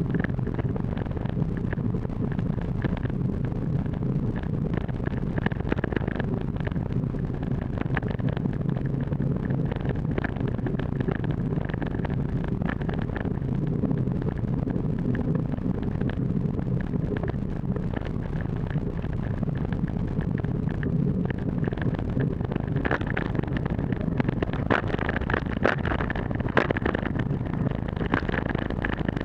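Trial motorcycle engine running steadily while riding a dirt trail, with wind on the microphone. Scattered sharp knocks, more of them in the last several seconds, as the bike goes over bumps.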